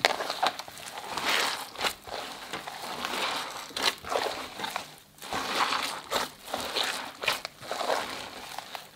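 Hands squeezing and kneading a large mass of wet slime mixed with foil confetti and glitter: repeated squelching, crackling squishes, with a short pause about five seconds in.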